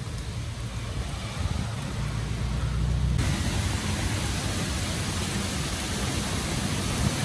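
Heavy rain pouring in a summer thunderstorm, with low rumbling thunder through the first three seconds. The rain's hiss jumps suddenly louder about three seconds in.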